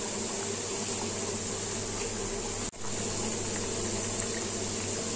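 Namkeen dough pieces deep-frying in hot oil in a pan: a steady sizzle, with a momentary cut-out about halfway through.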